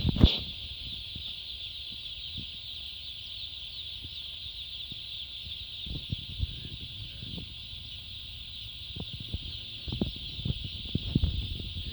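A large flock of broiler chickens chirping together in a steady, dense chorus. Low thumps and knocks come and go over it, loudest at the very start and more frequent in the second half.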